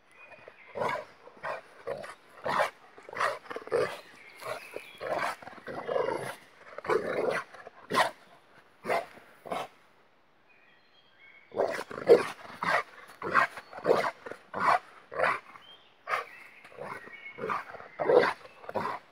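A large dog barking in a long series of short barks, roughly one or two a second, breaking off for a couple of seconds around the middle before starting again.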